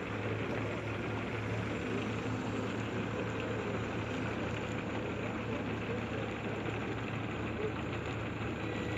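Backhoe's diesel engine running at a steady, even idle.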